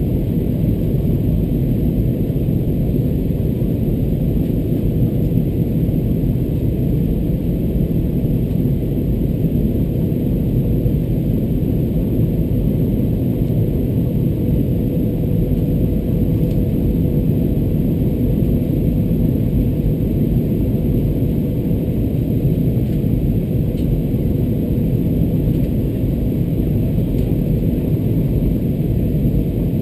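Steady, low rumble of an Airbus A321 passenger cabin in flight on approach: engine and airflow noise, with a faint steady hum.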